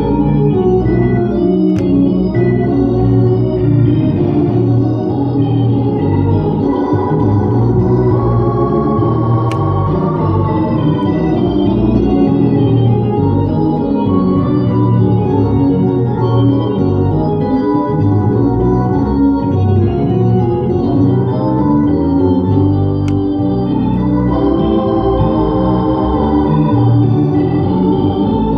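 Hammond organ played in sustained, changing chords with a melody on top, continuous and steady in level.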